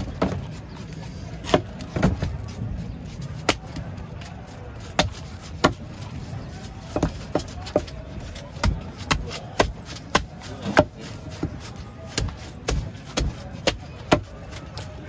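A large curved knife striking and scraping a fish on a wooden log chopping block, making a run of sharp, irregular knocks that come thicker in the second half.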